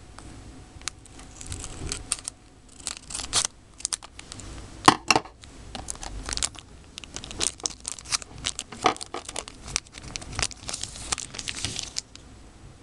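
Chocolate-and-trading-card packaging being torn open and crinkled by hand: a string of short rips and rustles, the loudest tear about five seconds in.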